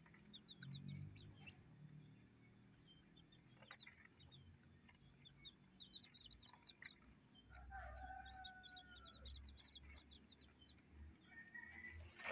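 Faint peeping of newly hatched native chicks: many short, high cheeps repeating. About halfway through comes a longer, lower call lasting a couple of seconds.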